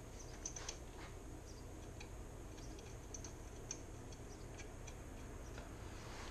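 Faint, irregular light clicks of small hardware, new lug nuts, being handled while being fitted to the mower's wheel studs, over a low steady hum.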